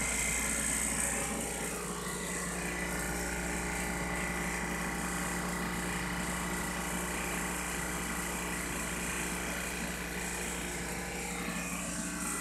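Blueline Orion 100 oil-sealed vacuum pump running steadily, pulling vacuum on a flask of transmission oil for a vapor pressure test.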